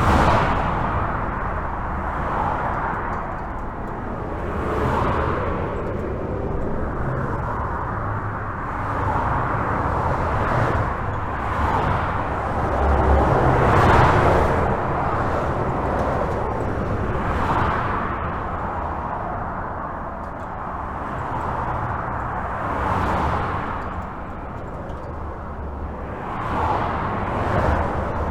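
Steady highway traffic heard from under a bridge: a continuous rush of tyres and engines with a deep rumble, swelling every few seconds as individual vehicles pass, loudest about halfway through.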